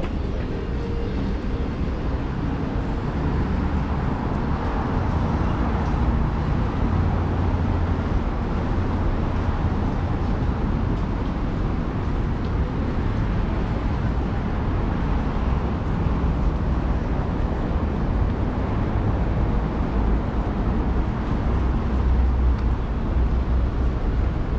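Steady city street traffic noise: road vehicles running by, with a deep rumble that swells and eases.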